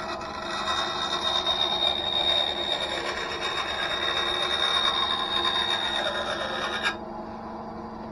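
Einhell TC-SB 200/1 bench bandsaw cutting a curve in thin plywood: a steady hiss of the blade in the wood over the hum of the running motor. The cutting noise stops abruptly about seven seconds in as the blade leaves the cut, and the saw runs on.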